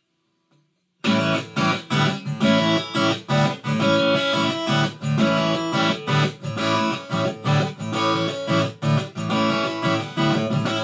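Acoustic guitar strummed in a steady rhythm, the instrumental intro to a song, starting about a second in after near silence.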